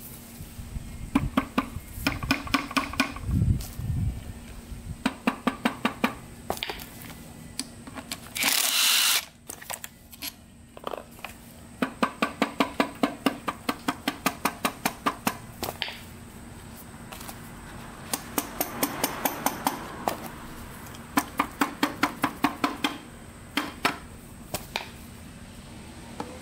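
Hand ratchet wrench clicking in several short runs of about five clicks a second as bolts are worked on a Suzuki RM125 two-stroke engine case. A brief rush of noise comes about nine seconds in.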